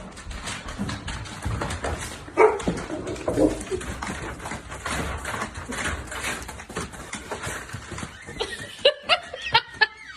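Dog whining and yipping, with a run of short, sharp yips near the end.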